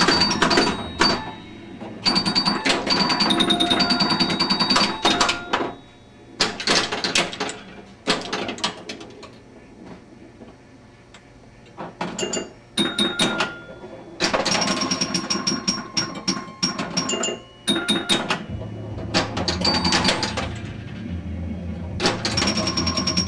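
1977 Bally Strikes and Spares pinball machine in play: rapid clattering bursts of clicks and knocks from the playfield mechanisms, mixed with short high beeping tones. About eight seconds in, the action thins out to scattered clicks for a few seconds, then the busy clatter and tones resume.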